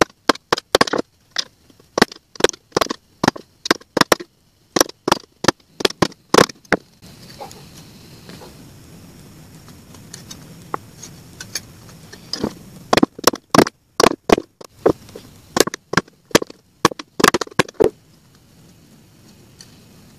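Hammer driving a nail through a flattened tin drink can on a stone slab, punching holes to turn the sheet into a grater: sharp strikes, a few a second, in two runs with a pause of several seconds between them.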